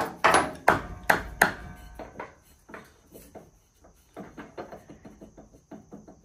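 Knocks and rattles of metal parts being handled while a drive belt is worked onto the pulleys of a riding mower: four sharp knocks in the first second and a half, then lighter clicks and rattles.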